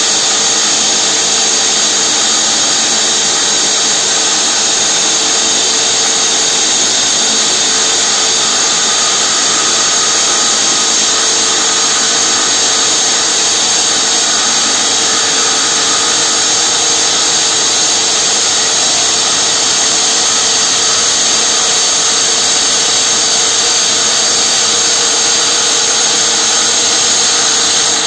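Hydraulic rock drill on a tunnel bolting rig's boom, drilling a bolt hole into the rock wall, running loud and steady.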